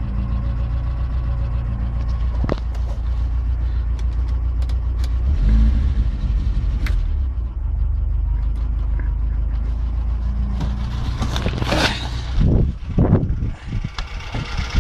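VAZ 2104's four-cylinder petrol engine running steadily, with a brief rise in revs about five seconds in. Near the end, a few loud noisy bursts break over it.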